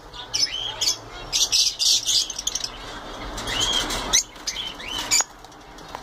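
Budgerigars chirping in quick short calls, with a stretch of wing flapping a few seconds in.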